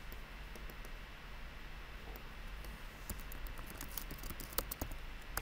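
Computer keyboard being typed on: scattered key clicks at first, then a quick run of taps through the second half, over a low steady hum.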